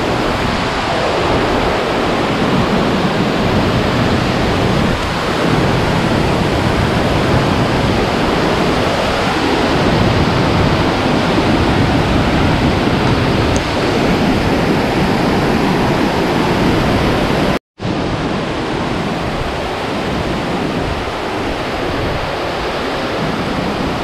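Waterfall rushing: a loud, steady wash of falling water, broken once by a split-second dropout about three-quarters of the way through.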